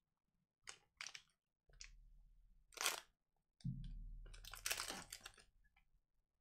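Plastic foil wrapper of a Donruss soccer card pack crinkling as it is torn open and handled: a few short crackles, then a longer rustle just past the middle.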